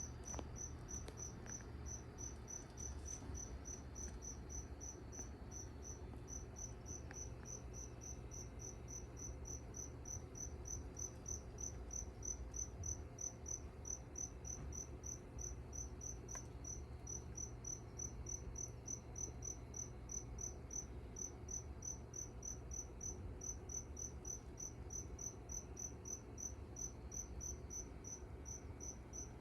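A cricket chirping in an even, steady run of short high chirps, about three a second, with a few brief pauses, over a faint low hum.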